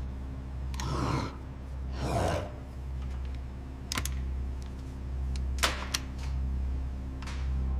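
A steady low mechanical hum, with two short whooshes in the first few seconds and a few sharp clicks or taps later on.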